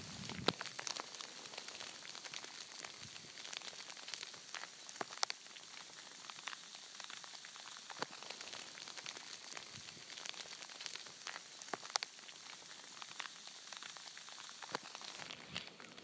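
Sleet falling: a fine steady hiss with irregular sharp ticks of ice pellets striking.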